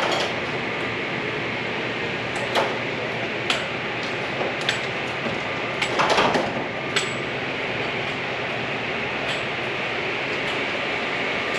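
Steady indoor background noise with scattered light knocks and clicks, loudest in a short cluster about six seconds in.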